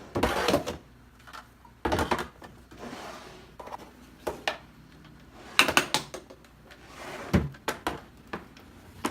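Drawers of an IKEA Alex dresser being handled, with a few thuds and clatters as drawers move and small items such as makeup are knocked and set down in them.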